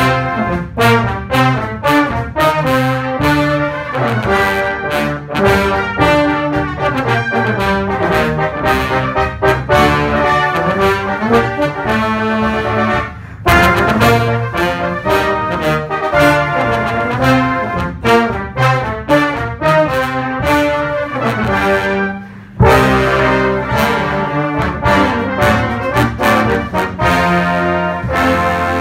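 A full military brass band of cornets, euphoniums, tubas and trombones playing together, with quick-moving notes. There are two brief breaks, about thirteen and twenty-two seconds in.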